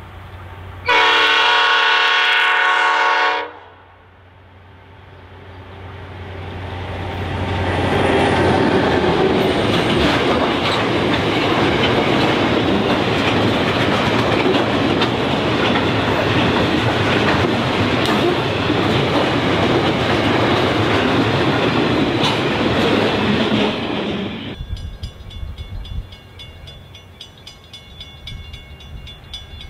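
The horn of an EMD 81 class diesel locomotive sounds one chord-like blast of about two and a half seconds. Then the locomotive and its long train of wagons loaded with concrete sleepers pass close by, a rumble and clatter of wheels on rail that builds over several seconds and stays loud. Near the end, after a cut, it drops to a quieter distant train approaching.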